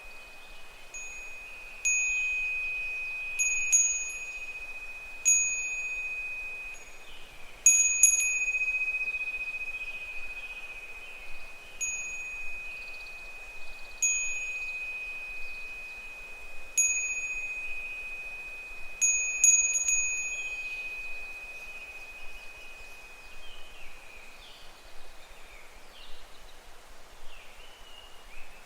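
Japanese furin wind bell ringing irregularly in the breeze. Its clapper strikes the bell every one to three seconds, sometimes twice in quick succession, and each strike gives a high ping over a held ringing tone that fades slowly. The strikes come more sparsely in the last several seconds.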